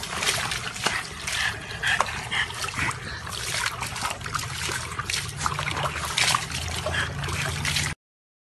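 Water splashing in a plastic tub as a small dog paddles and moves about in it; the sound cuts off abruptly near the end.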